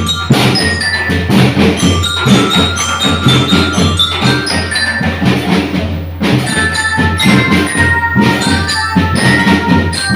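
Drum band percussion playing continuously: a fast, busy run of drum strokes under ringing, bell-like mallet notes, with a brief dip about six seconds in.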